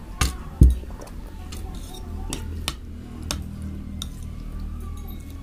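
A glass mug is set down on the table with a dull thud, then a metal fork clinks lightly several times against the plate.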